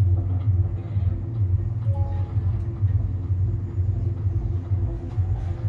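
Steady low rumble inside a moving cable car gondola running along its cable.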